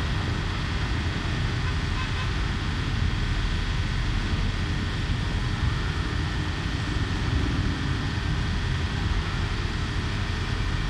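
Steady road traffic noise: cars passing on the road, a low rumble with no bangs.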